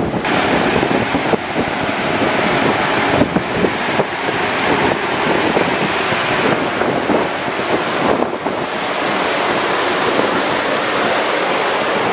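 Steady rush of wind and sea on the open deck of a ferry under way, with the wind buffeting the microphone.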